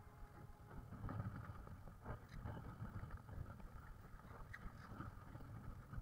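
Strong wind buffeting the microphone: an uneven low rumble that rises and falls in gusts, with a few faint clicks.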